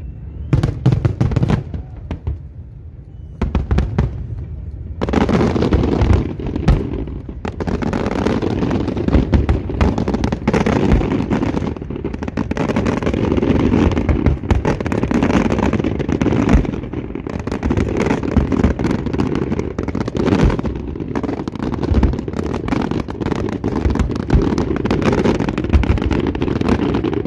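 Large fireworks display: aerial shells bursting with bangs and crackle. The bangs are spaced out at first, then about five seconds in they build to a dense, near-continuous barrage of overlapping bursts.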